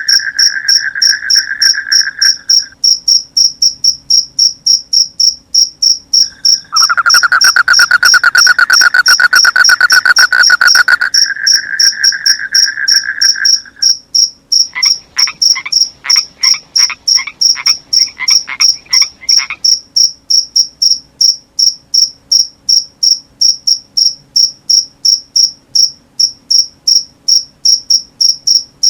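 Crickets chirping in a steady, regular pulse, with frogs calling over them: a lower trilling call near the start and again for several seconds mid-way, then a run of about a dozen short croaks.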